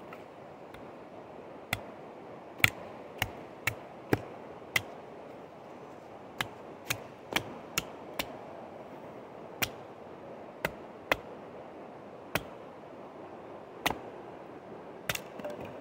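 A wooden baton striking the spine of a Bark River Mini Aurora knife, driving the blade down through an upright stick of wood. There are about eighteen sharp knocks at an irregular pace, some in quick runs with pauses between.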